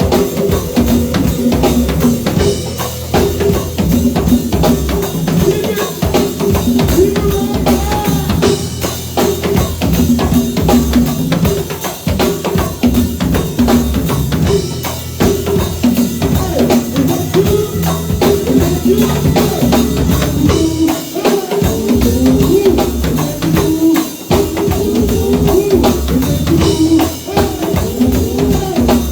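Live band playing an instrumental passage with a full drum kit keeping a steady beat over bass and other instruments.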